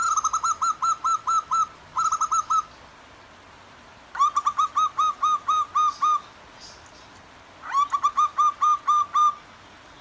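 Zebra doves (perkutut) calling: four bouts of quick, evenly repeated cooing notes, about five a second, one bout answering another. A faint steady rush of flowing water lies beneath.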